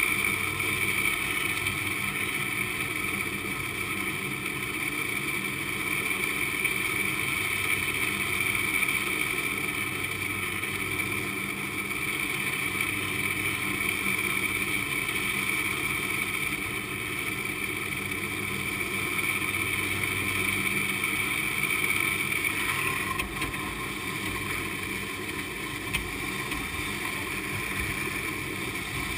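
San Francisco cable car haul cable running over a sheave in the vault beneath the street: a steady whirring hum with several held tones. The tones shift slightly about three-quarters of the way through, and there is a single short knock a little after.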